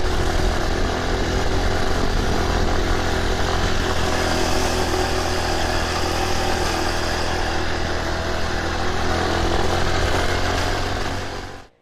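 Motorbike engine running steadily while riding, mixed with wind rushing over the microphone; the sound cuts off abruptly just before the end.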